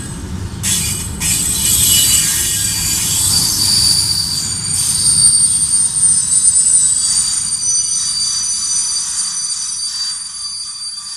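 Freight train of covered sliding-wall wagons passing close by: a rumble of wheels on rail under a high-pitched squeal of several steady tones. The rumble fades as the last wagon goes by near the end.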